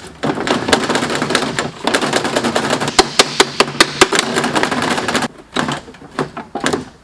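Car wiring harness being torn out by hand: a rapid crackle of plastic clips and connectors snapping and rattling, stopping about five seconds in, then a few scattered clicks.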